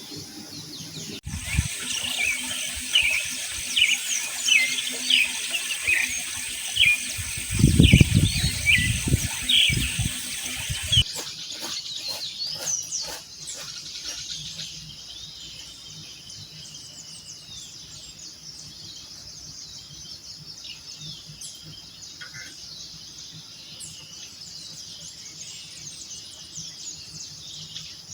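Many small birds chirping and calling in quick, overlapping short notes, loudest in the first ten seconds, with a brief low rumble of wind or handling noise partway through. After an abrupt change the chirps are fainter and sparser over a steady high insect drone.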